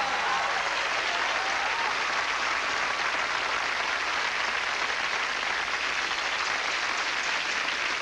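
A studio audience applauding steadily.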